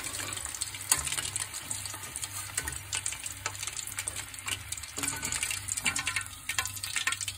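Chicken 65 pieces sizzling and crackling in hot oil during their second frying, cooked through. A few sharp knocks from a slotted steel skimmer against the wok as the pieces are lifted out.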